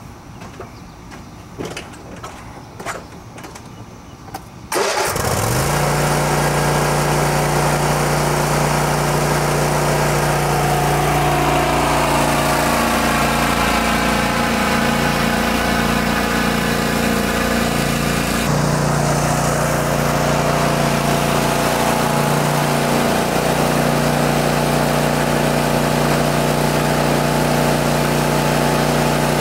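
Ariens Zoom 42 zero-turn mower: a few light clicks, then about five seconds in the engine starts abruptly and runs steadily and loud, its note shifting as the mower moves off and mows.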